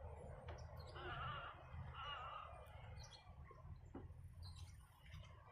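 Faint bird chirping, two short warbling phrases about one and two seconds in, over a low steady rumble.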